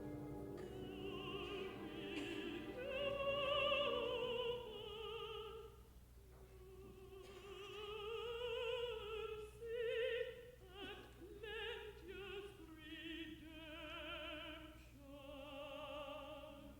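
Contralto voice singing with a wide vibrato over soft, sustained orchestral accompaniment, in long phrases with a short break about six seconds in and shorter, separated notes later on.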